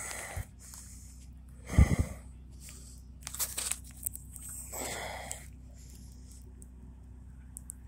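Rustling and handling noise on a handheld camera's microphone, with one heavier thump about two seconds in and a few short crackles later, over a low steady hum.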